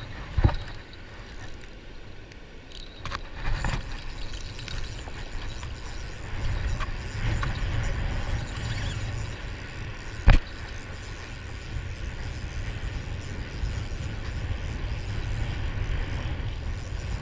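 Wind buffeting the microphone in a steady low rumble over the hiss of breaking surf, with one sharp knock about ten seconds in.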